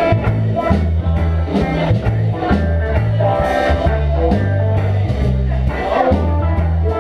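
Live band music with guitar and bass notes over a steady beat, and diners' chatter underneath.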